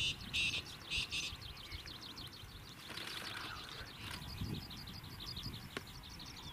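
Bird calling: a rapid, unbroken run of short high chirps, about nine a second, with three short harsh bursts in the first second or so and a low rumble underneath.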